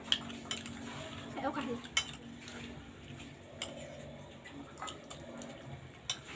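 Metal spoon clinking and scraping against a plate during a meal, a handful of sharp clinks at irregular intervals.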